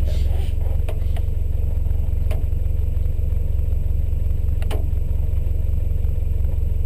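Subaru rally car's flat-four engine idling steadily at the stage start, a low even rumble heard from inside the cabin, with a few brief sharp ticks.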